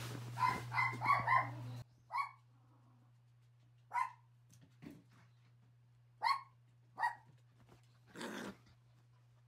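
Toy poodles barking while play-wrestling. First comes a quick run of four yips, then single sharp barks a second or two apart, and a short growl near the end.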